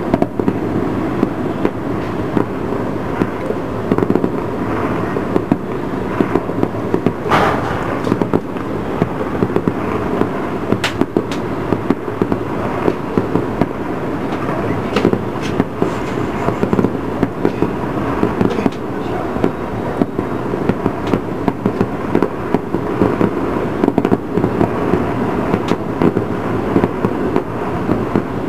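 Distant aerial fireworks bursting without pause, a dense run of overlapping bangs and pops with a few sharper cracks standing out.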